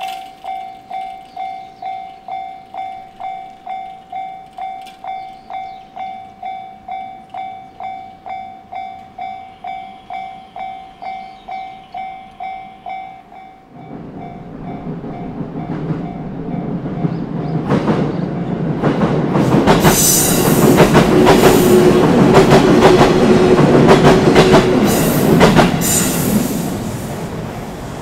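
Japanese level-crossing warning bell ringing steadily, about two dings a second. About halfway through, a JR Ome Line electric train takes over: it approaches with a growing rumble and passes loudly, its wheels clicking over the rail joints, then fades near the end.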